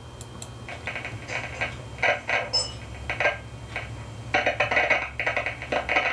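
Zenith Trans-Oceanic H500 tube radio, heard played back through a computer speaker, its station audio breaking up into short bursts with gaps between them over a steady low hum: silver mica disease in the IF transformer can.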